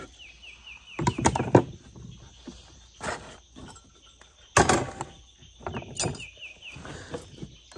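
Metal camp plates and pans clattering and knocking against each other and the wooden box as they are lifted out, in a few separate knocks, the loudest a little past halfway. A rapid, high chirping call repeats in the background at the start and again near the end.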